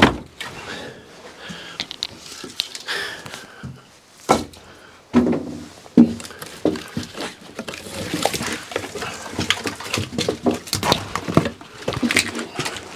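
Split firewood logs knocking and clattering against each other as they are pulled off a stack and gathered into an armful, with a few louder wooden strikes about four to six seconds in.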